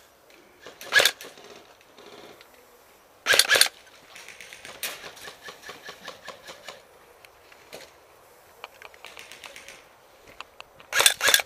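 Airsoft electric gun firing three short bursts of rapid clicking shots: one about a second in, another a few seconds in, and a burst near the end. Fainter rapid clicking between them.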